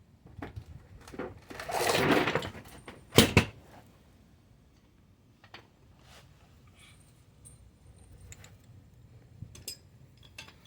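Metal tool pieces being handled and knocked together: a rattling scrape about two seconds in, then two sharp metallic clanks a second later, followed by scattered light clicks.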